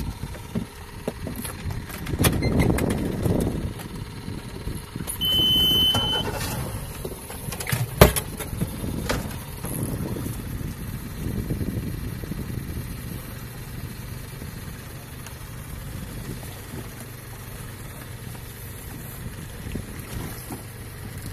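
Fishing boat's engine running at idle with a steady low hum, under rumbling wind and water noise. A brief high beep comes about five seconds in, and a single sharp knock about eight seconds in is the loudest sound.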